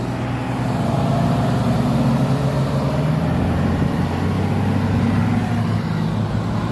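Heavy dump truck's diesel engine running steadily under load, its pitch drifting slightly up and down.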